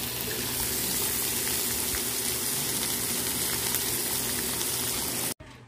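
Beef steak pieces, onions and green chillies frying on a large flat tawa griddle: a steady sizzle that cuts off suddenly near the end.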